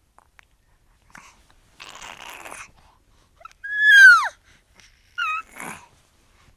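A young fox whining: a breathy huff, then one loud falling whine about four seconds in, followed by a short, higher squeak and another huff.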